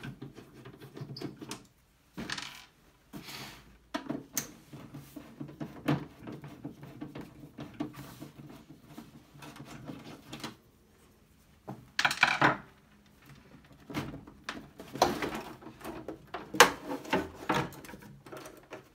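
Screwdriver work on the screws of an Apple Monitor III's plastic back shell, then the shell being worked loose and lifted off the CRT chassis: irregular scraping, rubbing and knocking of plastic, loudest in a short scrape about twelve seconds in.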